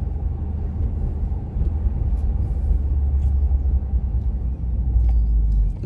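Steady low rumble inside the cabin of a 2015 Mitsubishi Lancer Evolution X GSR, heaviest through the middle and latter part.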